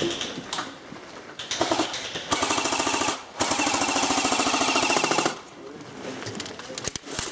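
Airsoft guns firing on full auto: a few rapid rattling bursts, the longest about two seconds, ending a little after the middle.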